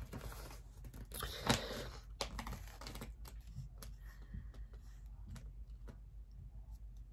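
Soft handling noises from hands on paper and packaging: scattered light taps and clicks, with a brief rustle about a second in, over a low steady hum.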